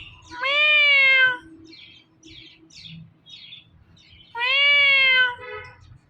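Ringneck parrot mimicking a cat's meow twice, each call about a second long and rising then falling in pitch, with faint short chirps between the two.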